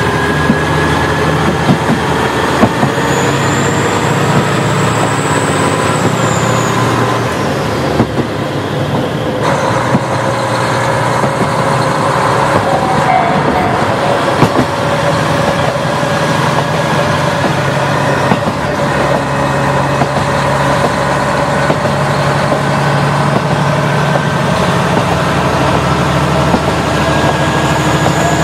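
KiHa 40 diesel railcar under way: a steady diesel engine drone and wheel rumble, with occasional clicks as the wheels cross rail joints. A faint high whine rises and falls about three to seven seconds in.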